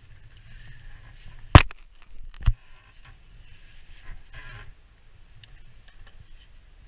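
Two sharp knocks a little under a second apart as a metal rainwater downpipe is gripped and handled, the first very loud, followed by brief rustling and scraping of hand and sleeve along the pipe.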